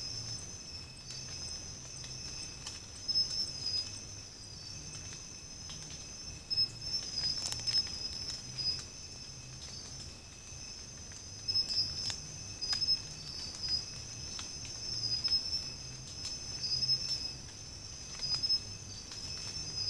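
Night insect chorus: crickets or katydids trilling steadily at a high pitch, two pulsing song lines over a fainter steady one, with scattered sharp ticks on top.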